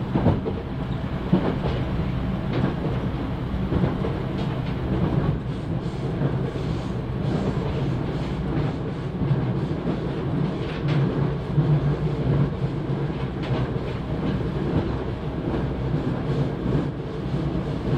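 311 series electric train running along the line, heard from inside the carriage: a steady rumble of wheels on rail with scattered clicks over the track.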